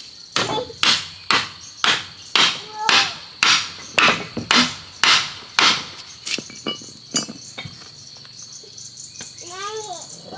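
Hammer striking wood, about two blows a second, a dozen or so strikes that stop about six seconds in. A steady high insect drone runs underneath.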